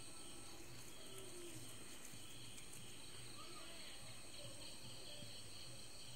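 Night insects chirring steadily, a continuous high trill, over a faint low hum.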